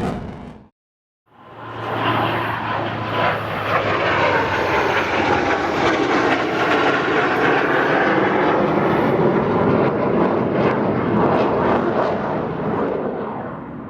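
Fighter jet engine noise that fades in about a second in, holds steady with its pitch slowly sweeping, and fades out near the end.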